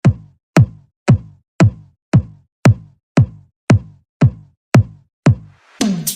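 Bass-boosted electronic ringtone music: a lone drum-machine kick beating about twice a second, each hit dropping in pitch into deep bass. Near the end the fuller track comes in.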